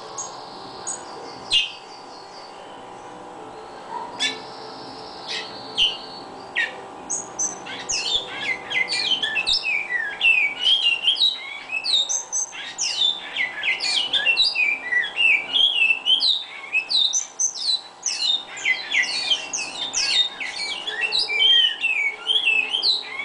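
Caged bicudo (great-billed seed-finch) singing: a few separate sharp call notes at first, then from about a third of the way in a long, rapid, unbroken song of varied sweeping whistled notes.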